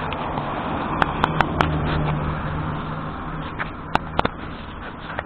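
Handling noise of an action camera held in the hand and pressed against clothing: rubbing and rustling right on the microphone, with sharp clicks, four in quick succession about a second in and two more near the end. A low steady hum runs under the first half and fades.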